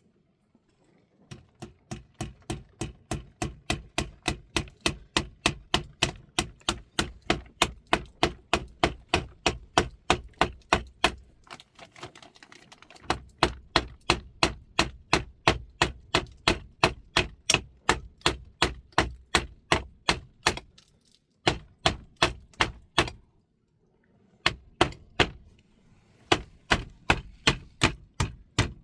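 Steady repeated striking blows, about three a second, each a sharp knock with a low thud, in long runs broken by short pauses.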